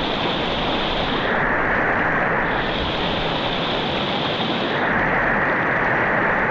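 Mountain river water rushing steadily, with a high hiss that shifts up and down in pitch every couple of seconds.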